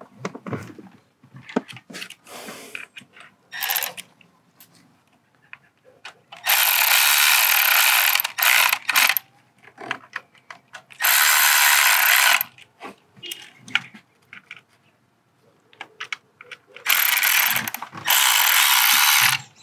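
Milwaukee cordless ratchet running in three short bursts, driving T25 Torx screws home, with small clicks and handling of tools and parts between the runs.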